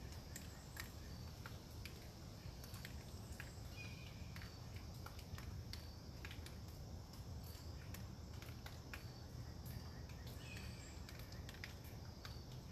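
Faint woodland ambience after a storm: a steady low wind rumble, scattered sharp ticks and a few short high chirps.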